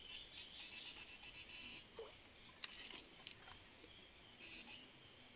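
Near silence with faint insect chirping in the background, and one sharp light click about two and a half seconds in.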